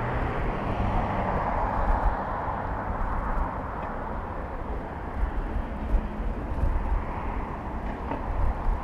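Road traffic heard from a bicycle on a city street: a passing vehicle's tyre and engine noise swells over the first couple of seconds and fades, with more traffic rising again near the end, over a low wind rumble on the microphone.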